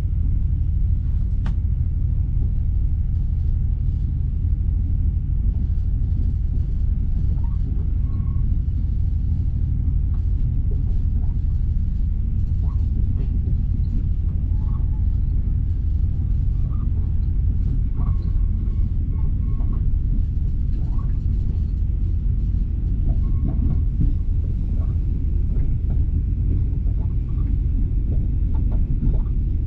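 Passenger train running along the track, heard from inside the carriage as a steady low rumble.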